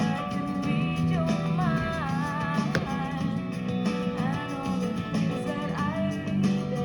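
Music: a song with guitar and a sung melody that slides between notes.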